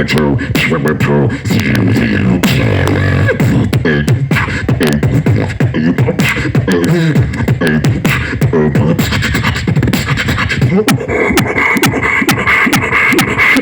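Layered mouth-made sound effects: a simple beatboxed rhythm of sharp clicks and beats over warbling vocal noises imitating sick dogs and futuristic machines.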